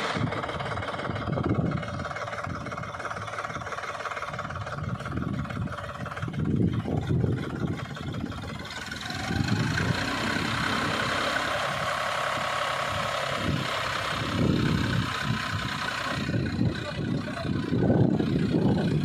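John Deere 5050D tractor's three-cylinder diesel engine running while the tractor is bogged in deep mud, its note rising and growing louder about nine seconds in.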